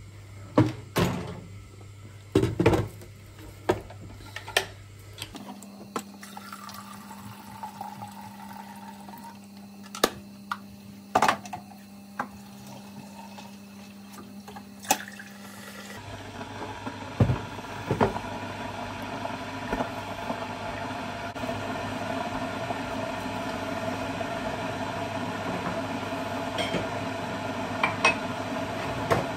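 Water running into a kettle, with clicks and knocks of handling it, then the kettle heating: a steady rushing sound that slowly grows louder over the second half, with a few clinks near the end.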